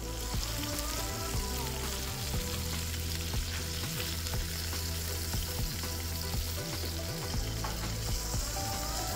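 Meat sizzling steadily on a hot tabletop gas griddle, over background music.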